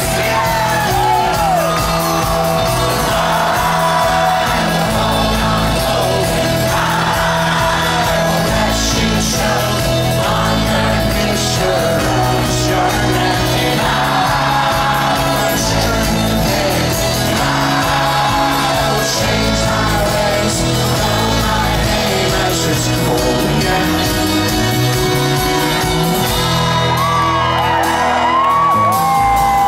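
Live folk-rock band playing an instrumental stretch on banjo, acoustic guitar, keyboard and upright bass, with shouts and whoops from the crowd, loudest near the end.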